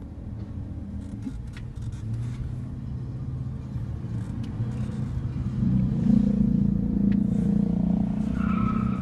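Car engine and road noise heard from inside the cabin, steadily growing louder. A brief high-pitched tone sounds near the end.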